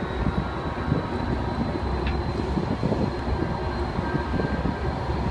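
Amtrak Pacific Surfliner diesel locomotive running as it rolls slowly light engine: a steady low engine rumble with a faint high whine over it.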